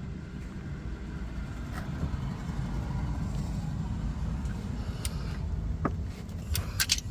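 Metal clicks of a hex tool working the transmission drain bolt as it is snugged in by hand: a few single clicks, then a quick cluster near the end, over a steady low rumble.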